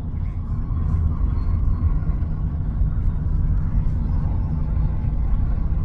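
Steady low rumble of a car on the move: road and engine noise heard from inside the cabin.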